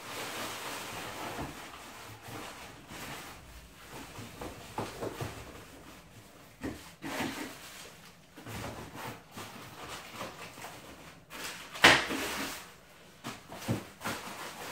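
Plastic-bagged parts and packing being handled in a cardboard box: irregular crinkling and rubbing of plastic with light knocks against the cardboard, and one louder sharp crackle near the end.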